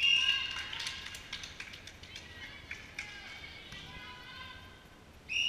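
Umpire's whistle blown in a short steady blast at the start and again near the end of a netball game in a wooden-floored hall, with players' voices, footfalls and shoe squeaks on the court between.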